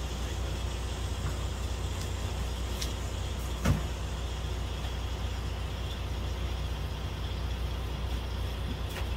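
Steady low drone of an idling engine, with one sharp knock a little over a third of the way in and a few faint clicks.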